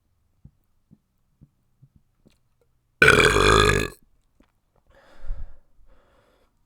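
A person belching loudly once, a single long burp of about a second starting about three seconds in, followed shortly after by a fainter, noisier sound.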